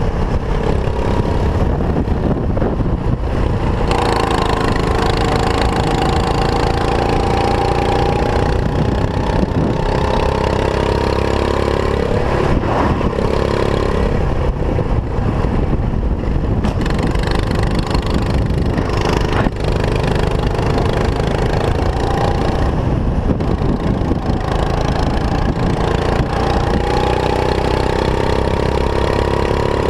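Go-kart engine running hard on track, its pitch climbing for several seconds at a time and dropping away, again and again, as the kart accelerates and lifts through the corners. Heavy wind rumble on the onboard camera underneath.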